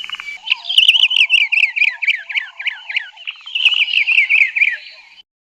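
Brown-crowned tchagra song: two runs of quick whistled notes, each note sliding downward and each run falling in pitch as it goes, with softer, lower notes beneath.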